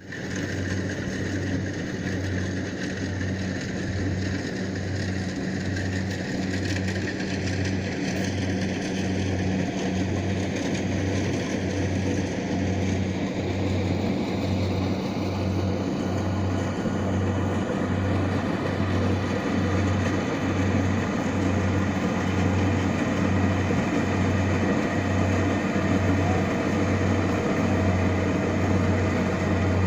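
Rice combine harvester running steadily. The machine noise has a regular low throb a little faster than once a second and grows slightly louder toward the end.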